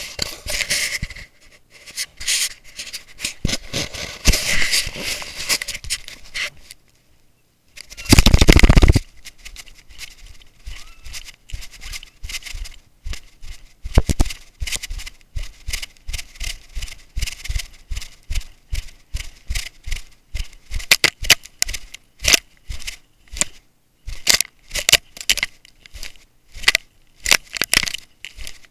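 Grass and brush scraping and rustling against a camera strapped to a running hunting dog's head, in a rhythm of about two sharp brushes a second, with a loud rumbling burst about eight seconds in.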